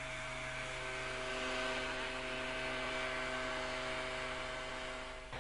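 Steady hum of several held tones over a soft hiss, which cuts off near the end.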